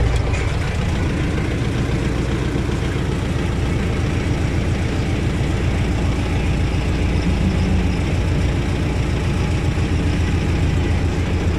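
T-40 tractor's diesel engine running steadily.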